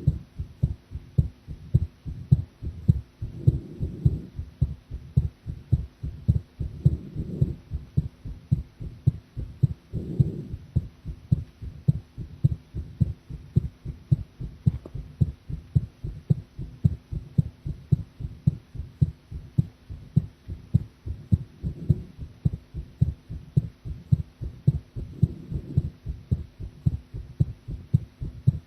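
A woman's heartbeat recorded at the chest: a steady, regular run of low thumps, with a soft swell of low noise every few seconds.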